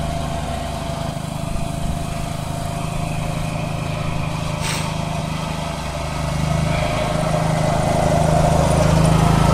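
Craftsman GT garden tractor's engine running steadily under load as it drives a front-mounted snow thrower, growing louder near the end as the tractor comes closer.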